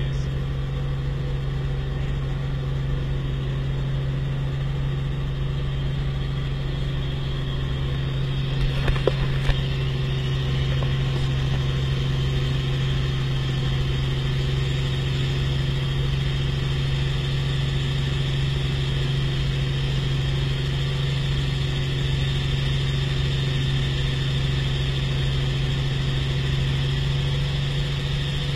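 Steady drone of a small helicopter's engine and rotor, heard from inside the cabin, with a few brief knocks about nine seconds in.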